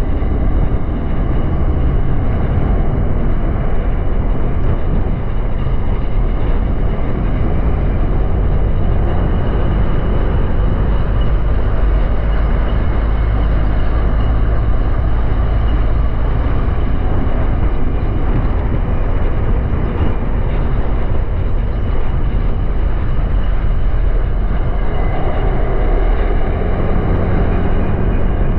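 Honda Click 125i scooter under way: a steady, loud rush of wind and road noise with the scooter's engine running underneath.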